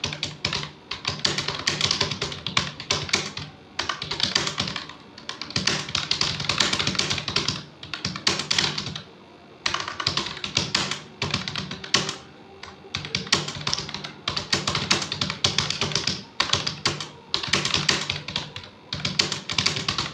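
Computer keyboard typed on quickly, the keys clicking in fast runs of a second or few, broken by short pauses.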